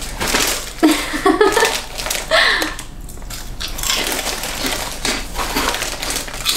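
A plastic snack bag crinkling as it is opened and rummaged in, then crisp snacks crunching as they are bitten, with short bursts of voice and laughter in the first few seconds.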